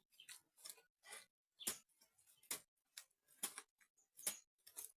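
Faint, irregular run of short wet slaps and squelches, about two a second, from mud being mixed with water by hand.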